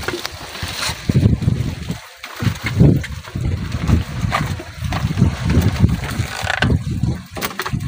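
Gusting wind buffeting the microphone in irregular low rumbles, with a few sharp clicks and scrapes from sandals stepping on rock.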